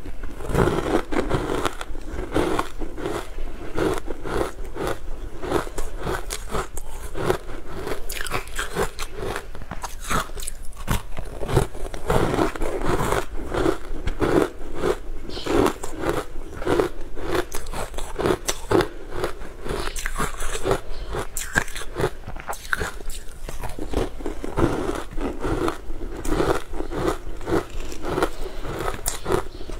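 Close, continuous crunching of frozen granular food as it is chewed and crumbled by a gloved hand, many quick crunches a second without a break.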